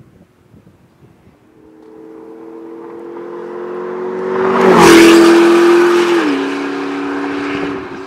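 McLaren MP4-12C's twin-turbo V8 with an Fi Exhaust catless pipe and valved cat-back, valves closed, driving past at speed. It builds as the car approaches and is loudest about five seconds in, peaking at 102.1 dB on the meter. The pitch drops as the car passes and steps lower again about a second later as it pulls away.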